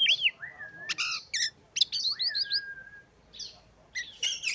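Oriental magpie-robin singing: a varied run of sharp chirps and quick up-and-down whistles, with a long, level whistle a little past the middle.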